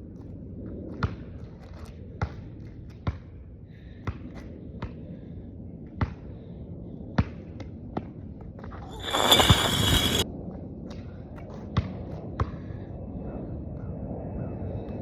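Basketball bouncing on a hard court in a dribble, roughly one sharp bounce a second. A little past the middle, a loud burst of noise lasts about a second and takes over from the bounces.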